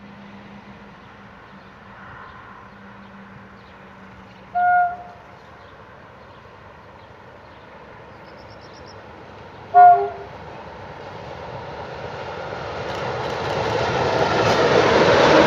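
CFR class 60 diesel-electric locomotive, with a Sulzer 12LDA28 two-stroke engine, approaching and sounding its horn in two short blasts about five seconds apart. Its engine and wheel noise grows steadily louder over the last few seconds as it nears.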